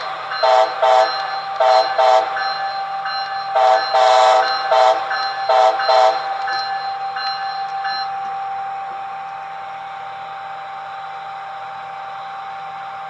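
A horn sounded in short toots, mostly in pairs, about nine blasts in all, with one slightly longer blast about four seconds in. The toots stop about six seconds in. A steady tone under them carries on for a couple more seconds, then fades to a low steady hum.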